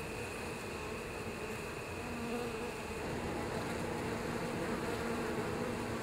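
Many honeybees buzzing at the hive entrance, a steady hum that grows a little louder about two seconds in.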